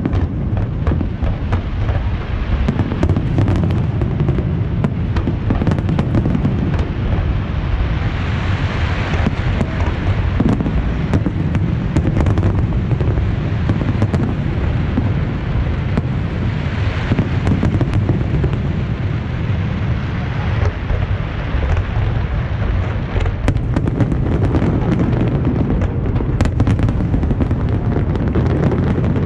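Large aerial fireworks display: a continuous barrage of overlapping shell bursts, deep booms mixed with many sharp cracks, brightening about 8 and 17 seconds in.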